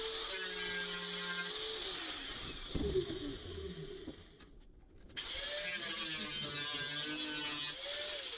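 Electric angle grinder running, then spinning down about two seconds in, with a clatter near three seconds. After a brief lull the grinder spins up again and runs with its pitch rising and falling under varying load.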